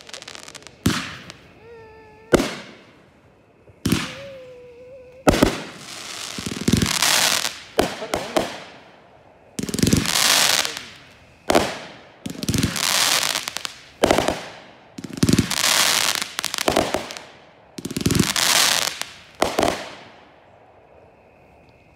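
Aerial fireworks shells going off in quick succession: a series of sharp bangs, each followed by about a second of crackling hiss that fades out, one every second and a half to two seconds. They stop about twenty seconds in.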